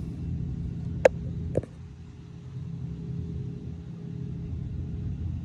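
Steady low rumble with a faint steady hum, broken by two sharp clicks about half a second apart a second or so in.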